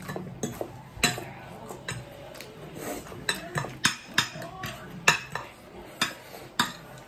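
Forks and a spoon clicking and scraping against plates while noodles are eaten: irregular sharp clicks, about two a second.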